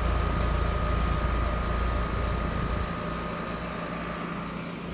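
Trane XR outdoor condensing unit running: a steady hum from the compressor and condenser fan with a thin, steady high tone over it. The low rumble eases off about three seconds in.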